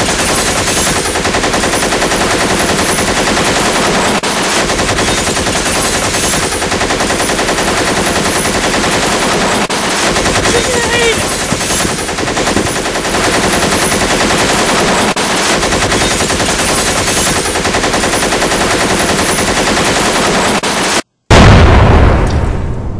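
Sound-effect automatic gunfire: one continuous burst of very rapid shots. It breaks off briefly near the end and gives way to a loud grenade explosion with a deep rumble that dies away.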